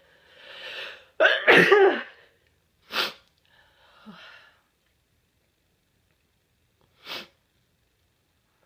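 A person sneezing: a rising breath-in over about a second, then one loud sneeze. A shorter, sharper burst follows about a second later, then a soft breath, and another short burst near the end.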